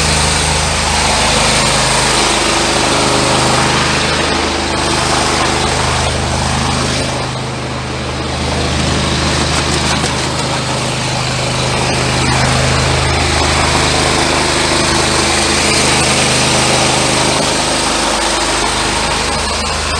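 High-pressure drain jetter's engine running steadily under a steady hiss while it jets hardened grease out of a 75 mm sink drain line.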